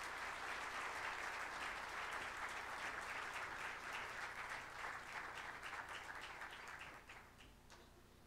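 Audience applauding, a dense patter of many hands clapping that tapers off about seven seconds in, with a few last scattered claps.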